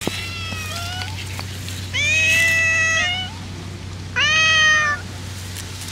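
Domestic cat meowing: short, fainter meows in the first second, then two loud, drawn-out meows of about a second each, around two and four seconds in.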